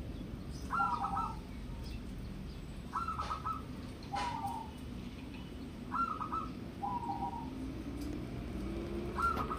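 Zebra dove (Indonesian local perkutut) singing its manggung coo. Four phrases come about three seconds apart, each a quick stuttered run of notes followed by a lower rolling coo.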